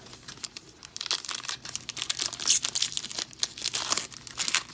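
A plastic trading-card pack wrapper being torn open and crinkled by hand. It is quiet at first, then a dense run of crackles starts about a second in.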